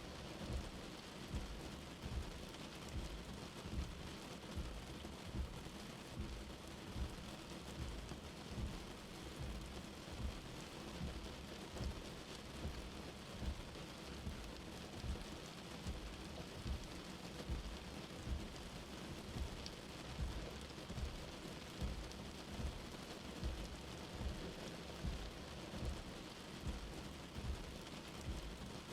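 Steady rain falling, with a high insect chorus running through it and dull low thuds about once a second.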